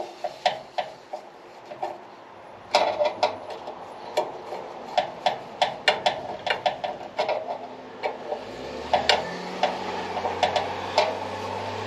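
Irregular sharp metallic clicks and taps, a few a second, from hand tools and metal parts being worked while a reservoir bracket is fitted. A low steady hum comes in about eight and a half seconds in.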